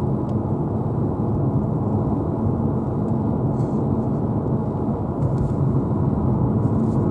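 Car driving at road speed, heard from inside the cabin: a steady low rumble of engine and road noise.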